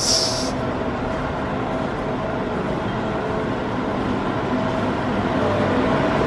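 Steady mechanical drone of machinery or air handling, an even whoosh with a faint steady hum in it, growing slightly louder near the end.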